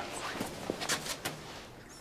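A few light knocks and scuffs of footsteps and shuffling as someone comes in and takes a seat.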